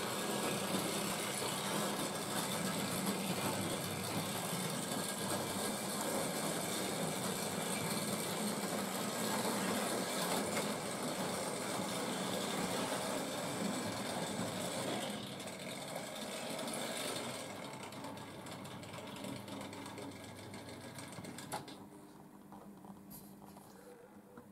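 Hornby Dublo three-rail model train running: the small electric motor whirring and the wheels clattering over the loose-laid tinplate track. The sound fades away over the last several seconds, with a single click about 22 seconds in.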